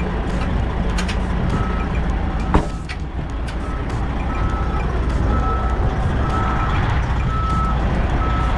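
A vehicle's reversing alarm beeps about once a second over the low rumble of a running engine, with one sharp knock about two and a half seconds in.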